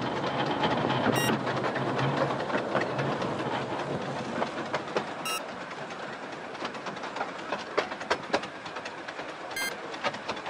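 Narrow-gauge miniature steam train running, heard from the carriage just behind the locomotive: a steady rumble with irregular wheel clicks over the rail joints, more frequent later on. Three brief high squeals come about four seconds apart.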